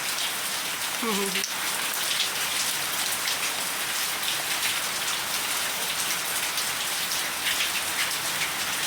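Steady rain falling, with many individual drops pattering and splashing close by.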